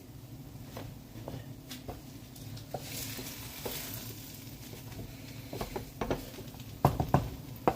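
Spoon stirring and scraping in a cooking pot, with scattered clinks and a few louder sharp knocks near the end, over a steady low hum.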